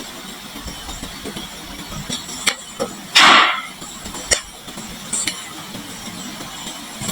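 Glass marbles clicking on a wooden marble run, with sharp separate clicks and one louder brief clatter about three seconds in.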